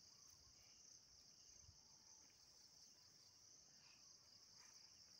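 Near silence, with faint, steady, high-pitched insect chirring in the background.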